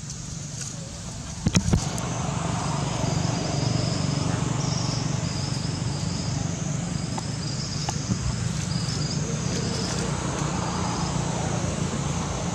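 Outdoor ambience: a steady low rumble with short, high-pitched insect trills repeating over it. A few sharp knocks come about a second and a half in.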